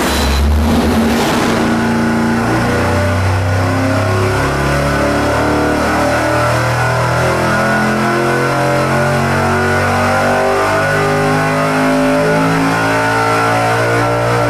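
Carbureted V8 with a small hydraulic-roller camshaft (224° at .050 on the intake) making a wide-open-throttle engine-dyno pull, its revs sweeping up from about 3,500 toward 7,000 rpm.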